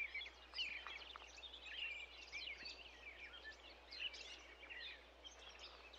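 Faint chorus of many small birds chirping and twittering, their short calls overlapping densely, over a low steady hum.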